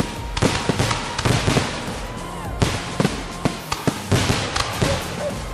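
Fireworks going off in rapid succession: many sharp bangs and crackling reports, several a second, with a few whistles gliding in pitch.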